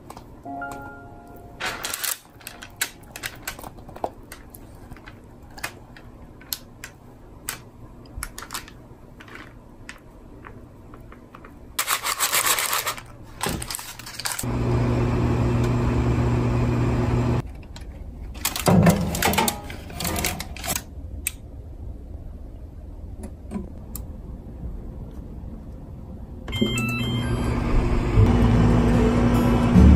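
A wooden spatula scraping and tapping thick brownie batter out of a metal mixing bowl into a parchment-lined baking pan: a run of small clicks and scrapes, with the parchment paper crinkling loudly about twelve seconds in. Near the end a steady low hum sets in.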